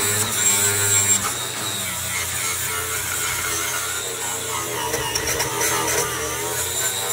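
Electric angle grinder with a coarse sanding disc running steadily while it is pressed against a truck's aluminum grille surround, grinding down the rough, dented surface as the first step before polishing.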